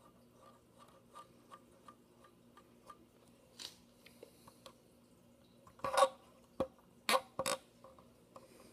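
Handling noise: a few faint ticks, then a cluster of four or five sharp knocks and clicks between about six and seven and a half seconds in.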